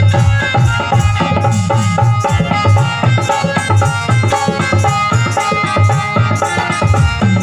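Live instrumental music: an electronic keyboard plays a melody over a barrel drum keeping a steady beat, about two low strokes a second.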